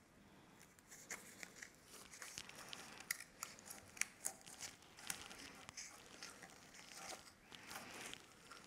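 Faint irregular scraping and small clicks of a thin plastic stick rubbing and tapping against the glass neck of an oil-and-vinegar cruet while moss is pushed down into it, starting about a second in.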